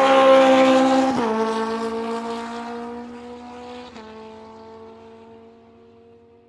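An engine drone that drops in pitch in two sudden steps, about a second in and again about four seconds in, while it fades out steadily.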